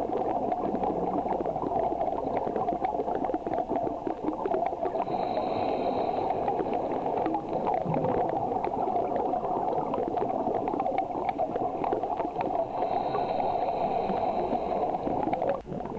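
Underwater sound around scuba divers: a steady muffled gurgling and crackling of regulator bubbles, with a short higher hiss twice.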